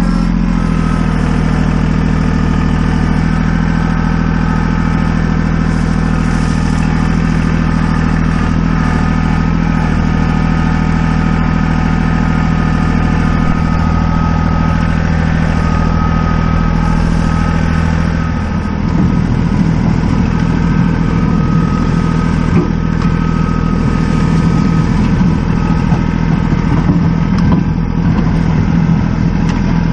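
Tractor engine running steadily. About eighteen seconds in, its low note turns rougher and more uneven.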